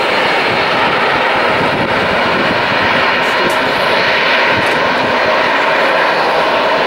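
An Airbus A380's four jet engines running as the airliner rolls along the runway. The sound is a loud, steady jet rush with a faint whine.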